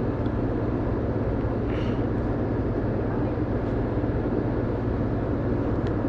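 Steady low rumbling background noise that stays even throughout, with a faint brief rustle about two seconds in.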